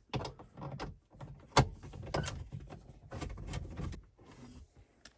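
Irregular clicks, knocks and short scrapes of a tool and hands working at the screws that hold the old head unit in a Toyota Camry's dash, with one sharper knock about one and a half seconds in.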